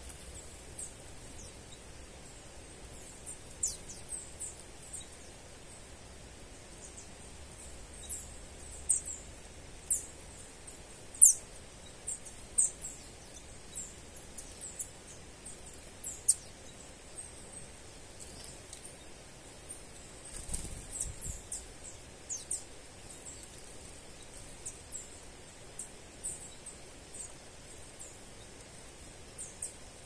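Small songbirds giving many short, high, thin chirps at irregular intervals, the loudest about eleven seconds in, with a brief rustle about twenty seconds in.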